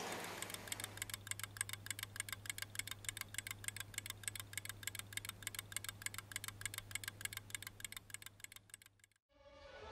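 Rapid, evenly spaced clicking over a steady low hum. It stops suddenly near the end.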